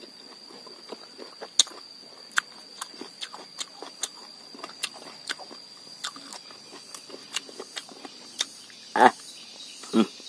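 A person chewing thin lime slices eaten rind and all, with wet, crisp clicks and smacks at an uneven pace and two louder mouth sounds near the end. A steady high insect buzz runs behind.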